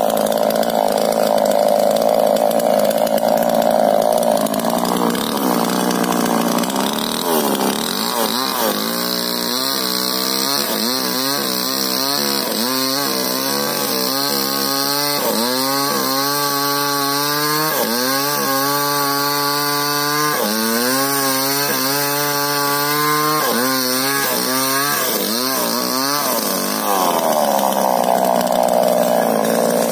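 Two-stroke Stihl chainsaw cutting into the base of a rubber tree. It runs high at first, then bogs down under load for most of the cut, its pitch dropping and climbing back over and over. Near the end it races high again as the cut finishes.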